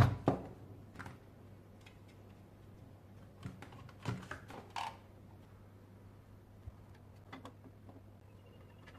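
Scattered knocks and clicks over a steady low hum: a loud pair right at the start, a cluster about four seconds in, and a few faint ticks later.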